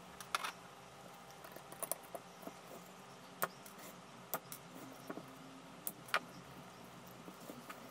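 Hands working a small crossover board and wire cutters on a wooden bench: a few sharp clicks and light knocks, spaced about a second apart, over a faint steady background hum.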